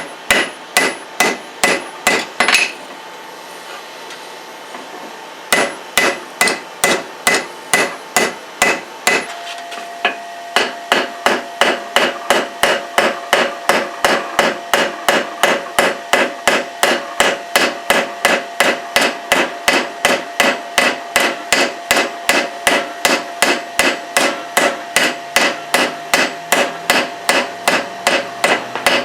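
Hammer blows on leaf-spring steel over an anvil, about three strikes a second, with a ringing tone under the later blows. The hammering stops for a few seconds near the start and pauses briefly again about a third of the way in.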